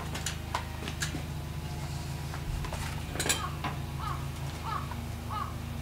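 Small single-cylinder engine running steadily with a low pulsing hum, with a few sharp metallic clinks. From about halfway a short squeak repeats roughly every 0.6 seconds.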